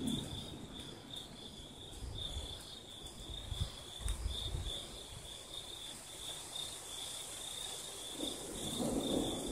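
Crickets chirping in a steady, pulsing high trill. The tail of a thunder rumble dies away at the start, and a low rumble builds again near the end.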